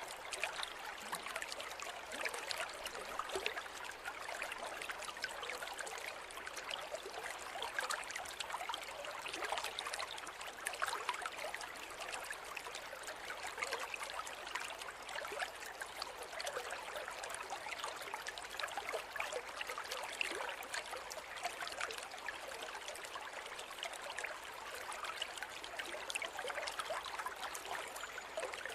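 Forest river running over stones: a steady bubbling, trickling rush of water with many small splashes and no pauses.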